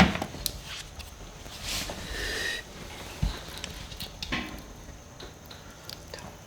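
Uncapping scraper dragging wax cappings off a frame of honeycomb: soft, sticky scraping with scattered light clicks. There is a sharp knock right at the start and a longer scrape about two seconds in.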